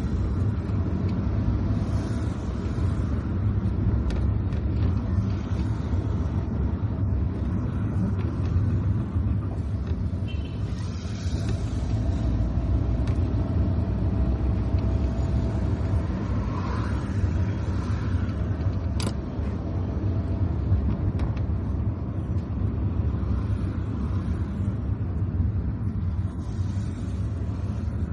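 Car driving on a wet road through city traffic: a steady low road and engine rumble with tyre noise, and one short sharp click about nineteen seconds in.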